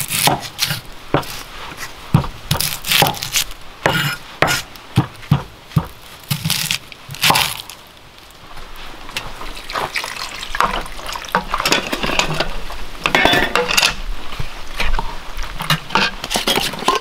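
Kitchen knife cutting an onion on a wooden cutting board: a run of irregular knocks of the blade against the board. About halfway through, the knocks give way to quieter handling sounds as the ingredients go into a cast-iron pot.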